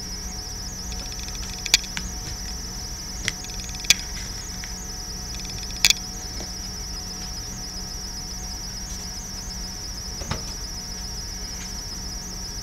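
A few short sharp clicks and taps as a deck of oracle cards is handled and a card is set down on cloth, the loudest about six seconds in. Under them runs a steady high-pitched chirring, a cricket chorus.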